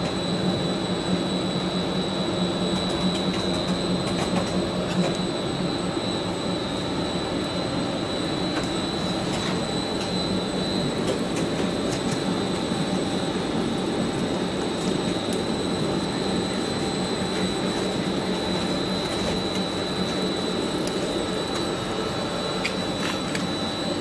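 PVC sheet extrusion line running: a steady mechanical hum of its motors and calender rolls, with a constant high-pitched whine over it.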